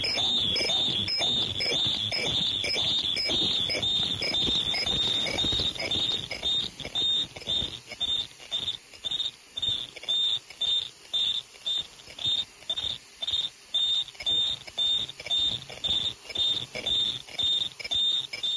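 Automatic KN95 mask-making machine running: a high-pitched whine pulses about twice a second, in step with a production rate of about 115 masks a minute, over rattling clatter from the machine.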